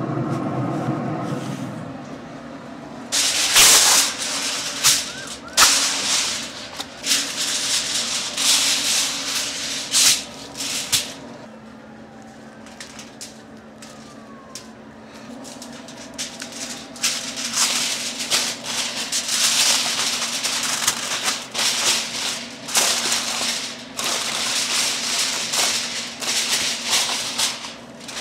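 Aluminium foil crinkling in quick bursts as smoked meat is wrapped in it by hand, with a quieter stretch in the middle.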